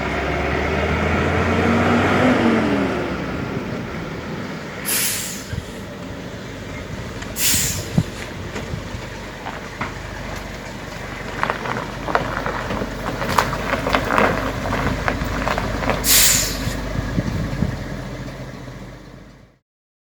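Old ZIS-150 army truck's inline-six petrol engine running, its pitch rising and falling in the first few seconds. Three short hisses of compressed air come at intervals, with scattered clicks and knocks, and the sound cuts off suddenly near the end.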